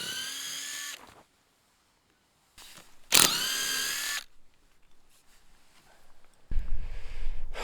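A small electric power tool, like a cordless drill, whining in two short runs of about a second each, the first right at the start and the second about three seconds in, each rising in pitch as it spins up. A low rumble follows from about six and a half seconds in.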